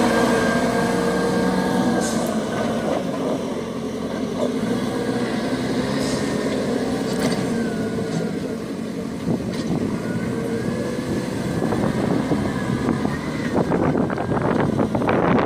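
Heavy engine of a truck or construction machine running steadily, with a higher whine that rises and falls and scattered clicks and knocks, busier near the end.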